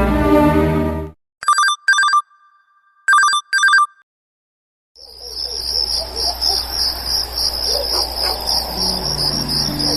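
LG KS10 mobile phone ringtones played in turn: a melodic tune cuts off about a second in, then an electronic telephone-style ring sounds as two double beeps about a second and a half apart. After a short pause a ringtone of chirping crickets begins, with a low melody coming in near the end.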